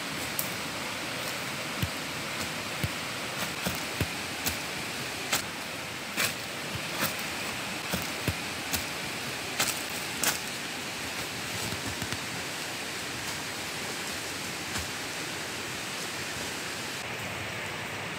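Footsteps crunching and snapping on dry leaf litter and twigs: irregular cracks about every half second, thinning out after about twelve seconds, over a steady background hiss.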